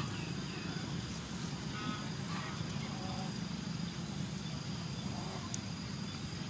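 Outdoor ambience: a steady low rumble with a faint high steady tone and a few faint bird calls, and one light click about five and a half seconds in.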